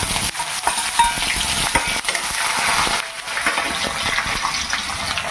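Chopped onions frying in hot oil in a steel kadhai: a steady sizzle with many small pops and crackles.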